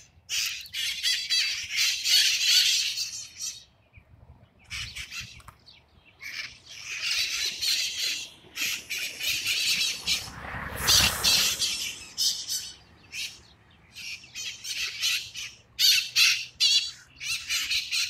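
A flock of feral parrots calling loudly from a tree: a racket of high, harsh calls in repeated bouts with short lulls between them. A brief rush of noise comes about eleven seconds in.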